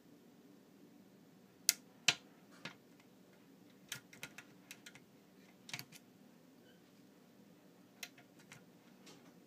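Irregular small sharp clicks of a lock pick and tension wrench working the spool pins of a Prevost pin-tumbler lock, the two loudest about two seconds in, then scattered clusters.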